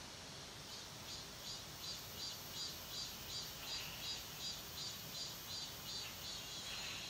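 An insect calling in a regular series of short, high-pitched pulses, about three a second, starting just under a second in and stopping near the end.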